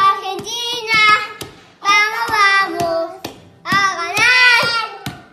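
Young children singing loudly in short phrases of about a second each, with a few sharp claps between them.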